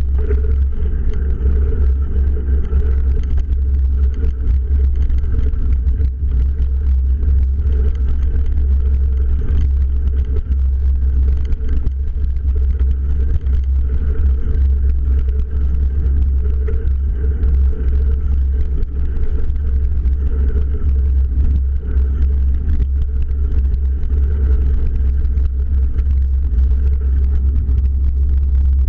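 Steady wind rumble on the camera microphone mixed with tyres rolling over a dirt road as a bicycle coasts downhill, with faint scattered gravel ticks.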